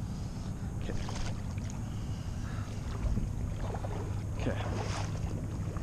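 A steady low rumble with small scattered splashes and knocks from someone moving about in shallow water.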